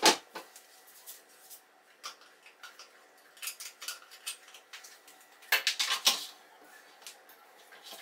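Light knocks and clicks of a stainless steel electric kettle, its base and plug being handled on a kitchen countertop, with a sharp knock at the start and a busier run of knocks and scrapes a little past halfway.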